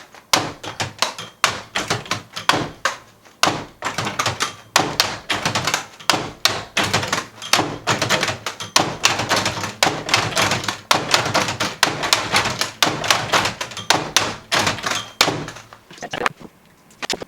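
Rapid, irregular clacking and knocking of the prototype's wooden and metal parts as it is worked and adjusted, several knocks a second. It stops about a second before the end.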